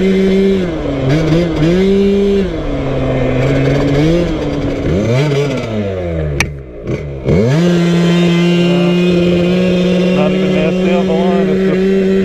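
TPR 86cc big-bore scooter engine running under way at steady high revs on a tuning run with 5.4 g variator weights. Its note dips twice in the first few seconds and falls away between about five and seven seconds in, then comes back up suddenly and holds steady. The rider describes the engine as good off the line and then falling on its face.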